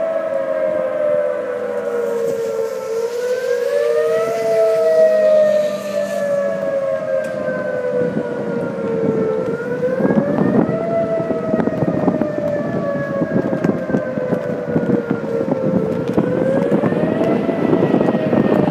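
Outdoor tornado warning siren wailing. Its pitch rises quickly, then slides slowly down, about every six seconds. Wind gusts on the microphone grow stronger in the second half.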